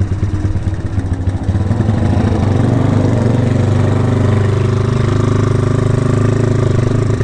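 Honda Tiger motorcycle's single-cylinder engine running steadily at low revs through a CJDW aftermarket racing muffler, with a deep, even exhaust note.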